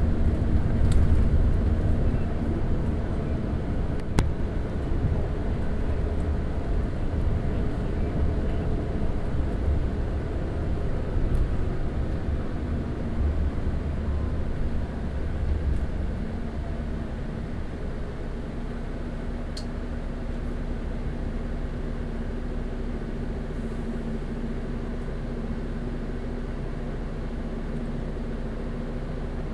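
Double-decker bus engine running under way, a heavy low rumble that eases about halfway through into a quieter, steadier hum. Two brief clicks, one a few seconds in and one about two-thirds through.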